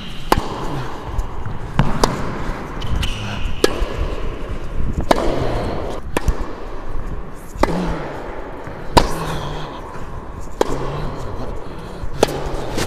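Tennis ball struck back and forth with Head Prestige rackets in a baseline rally, about nine sharp hits spaced roughly a second and a half apart.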